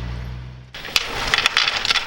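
A steady engine hum that fades, then an abrupt cut about three-quarters of a second in to irregular crunching and sharp clicks.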